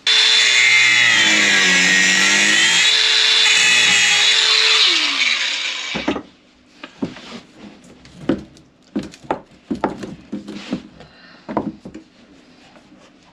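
Cordless angle grinder cutting into a metal skin fitting: a loud high whine that dips in pitch as the disc bites, then spins down about five seconds in. It is followed by scattered knocks and clunks as the old hose is pulled loose by hand.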